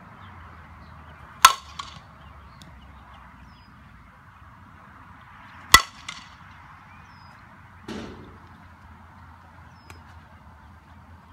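Softball bat striking a pitched softball twice, about four seconds apart, each hit a sharp crack followed by a fainter knock. A duller thump comes about two seconds after the second hit.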